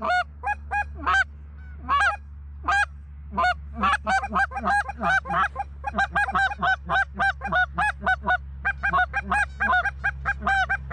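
Loud goose honking: short, rising-and-falling honks repeated over and over, spaced out at first and then coming fast, about four or five a second, from a few seconds in.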